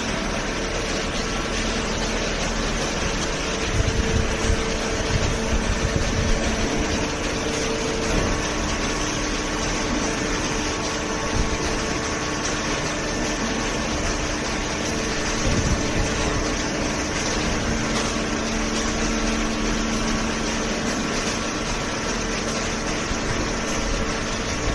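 Hydraulic baler's pump motor running steadily with a mechanical hum, a few dull knocks breaking in now and then.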